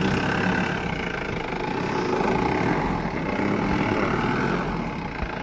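Mahindra Bolero Maxx pickup's diesel engine running steadily while the truck, stuck in soft field soil, tries to drive out.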